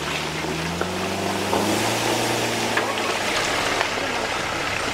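Off-road 4x4's engine pulling at low revs under load as the vehicle crawls through deep mud ruts, its note rising slightly over the first couple of seconds, with a rushing of tyres and mud throughout.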